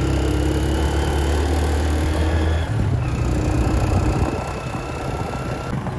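Motorcycle engine of a sidecar tricycle running while under way, with road and wind noise; the engine note shifts about halfway through.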